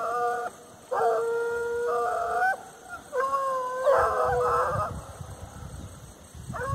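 A pack of American hunting hounds baying while they hunt, in long drawn-out howls with several voices overlapping. Three calls of about a second and a half each come in a row, then a pause, and another starts near the end.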